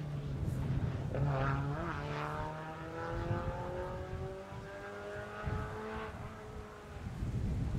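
Rally car engine on a special stage: a quick dip and recovery in revs about a second and a half in, then a long steady climb in engine pitch as the car accelerates away, fading out near the end.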